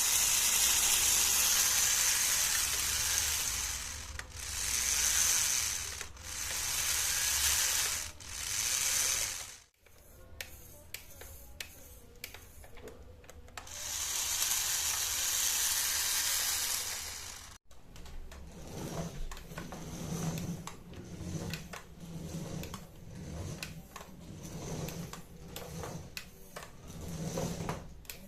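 Small brushed DC motor from an RC car spinning up in bursts of a few seconds, a high hissing whir each time. Later come irregular clicks and light knocks of small metal parts being handled.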